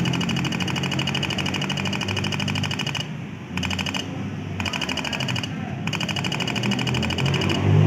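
Rapid, even clicking of an interrupter (flasher-type) relay switching on and off in a scooter's DIY rapid-backfire circuit, with the carbureted scooter's engine running underneath. The clicking pauses briefly about three seconds in.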